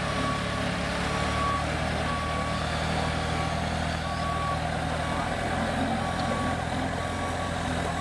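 Telehandler reversing: its reversing alarm beeps a single high tone about once a second over the steady running of its diesel engine.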